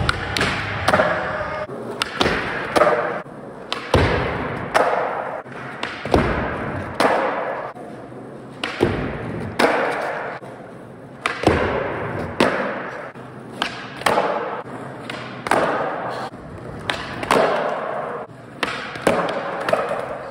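Skateboard on Thunder 148 Hollow Light trucks rolling on a concrete floor, with a long series of sharp knocks from tail pops, landings and the board hitting ramps and ledges, echoing in a large hall. A skater slams to the floor near the end.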